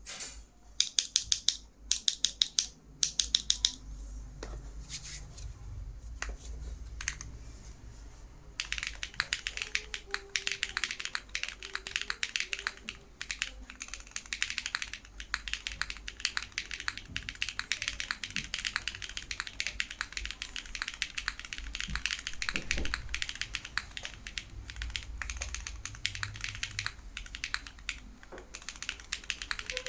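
Stello65 mechanical keyboard being typed on. It has tactile franken switches (KNC Keys Green Jacket stems in Cherry Brown housings), GMK Denim keycaps and an aluminium plate, is gasket mounted, and has no case, plate or PE foam. In the first few seconds there are short bursts of rapid repeated keypresses, then a few single keystrokes, and about nine seconds in it changes to steady fast typing.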